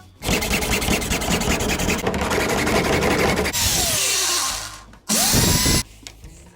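A handheld power tool runs under load, working against material for about four seconds, then spins down with a falling whine. It starts again about five seconds in with a rising whine, runs briefly and cuts off suddenly.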